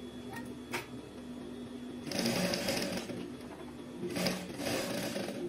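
Sewing machine stitching through fabric in two short runs, the first about two seconds in and the second about four seconds in, with a steady hum between them.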